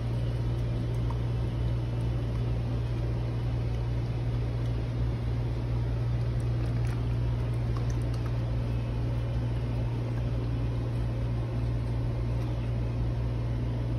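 A steady low mechanical hum with a faint even hiss.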